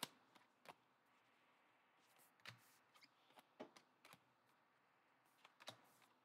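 Near silence, broken by about a dozen faint, short clicks and snaps of stiff trading cards being slid one past another in the hand.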